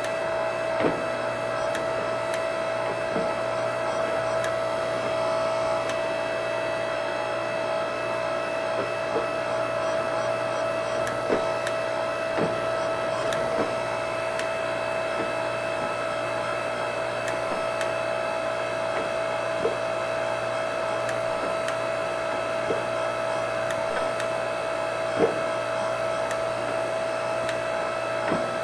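Steady electric motor hum with a constant whine from the power press used to straighten a bent iron wagon brace. Light metallic clicks and taps come every few seconds as the iron is shifted and pressed under the ram.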